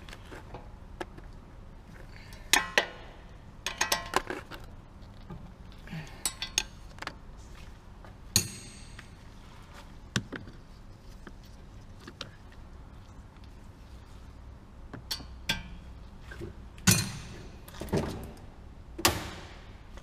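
Metal hand tools and car parts clinking and knocking at irregular intervals. There is a ringing metallic clank about eight seconds in and three louder knocks near the end.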